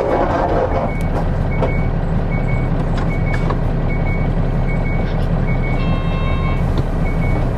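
Nissan Diesel Space Runner KK-RM252GAN route bus on the move, heard on board: the diesel engine runs steadily, with a short electronic beep repeating about every 0.7 seconds.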